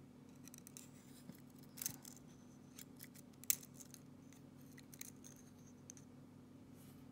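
Scattered light metallic clicks and taps of tweezers handling the tiny pins of a disassembled Trioving 5652 lock cylinder, the sharpest about three and a half seconds in. A faint steady hum runs underneath.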